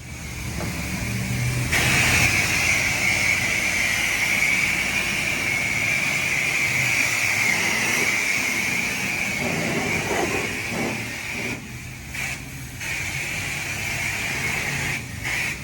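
Pressure washer running, its motor humming under a steady hissing spray that starts about two seconds in and cuts out briefly twice near the end as the trigger is let go.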